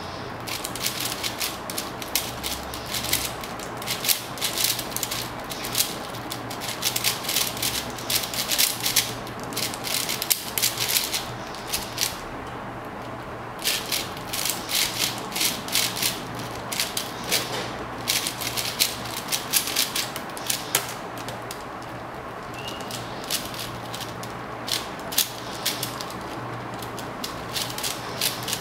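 4x4 speed cube turned fast by hand: a dense run of plastic clicks and rattles from its layers, with a short pause about halfway. The turning stops about three-quarters of the way through, leaving only a few scattered clicks.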